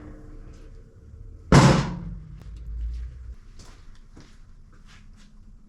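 A single heavy thud about one and a half seconds in, as the riding mower's battery is lifted out and set down, followed by a few light clicks and knocks.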